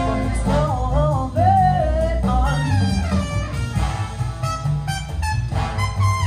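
Music played over Burmester BC150 loudspeakers: a singing voice carries a gliding melody over guitar and a steady, beating bass line.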